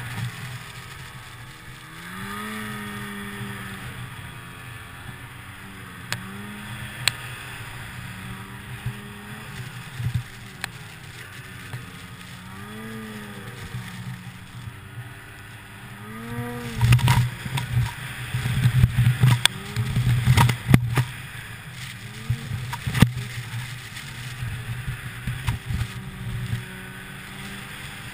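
2008 Ski-Doo Summit 800 two-stroke snowmobile engine running under changing throttle, its pitch rising and falling again and again while riding through deep powder. About halfway through come several seconds of loud rough thumps and buffeting, then the engine settles to a steadier tone.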